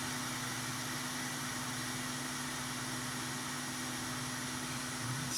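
Steady background hum and hiss with a constant low tone, unchanging and with no distinct event: room tone.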